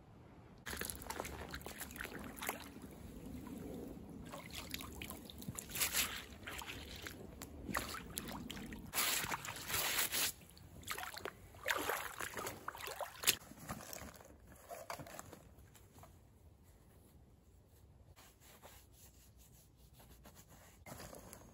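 Water sloshing and splashing in irregular bursts, starting suddenly just under a second in and dying down after about fourteen seconds.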